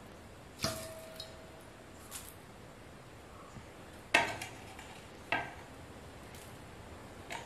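A handful of light knocks and clinks of a plate of ingredients being handled beside a stone grinding slab. The loudest knock comes about four seconds in, and the first leaves a short ringing tone.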